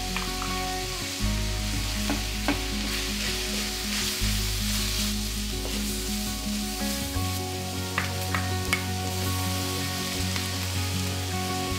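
Vegetables and seafood sizzling in a hot wok as they are stir-fried, with a wooden spatula now and then knocking and scraping against the pan in sharp clicks.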